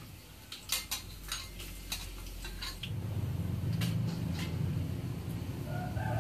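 Metal spatula clinking and scraping against an aluminium wok as sliced garlic is stirred in hot oil, in a quick run of sharp strokes during the first three seconds. A low steady hum sets in about three seconds in.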